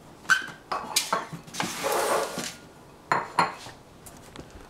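Eggs and an egg carton being handled beside a stainless-steel sink and saucepan: a series of light knocks and clicks, with a short rustle in the middle.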